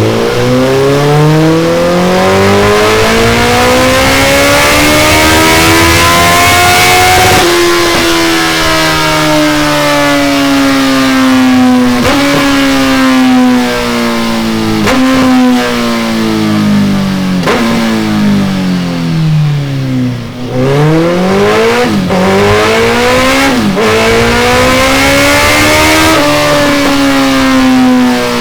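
Suzuki Hayabusa inline-four engine running through a Delkevic tri-oval stainless steel exhaust on a dyno. The engine note climbs steadily for about seven seconds, then sinks slowly. It dips low about two-thirds of the way through, climbs again and falls near the end, with several short sharp breaks along the way.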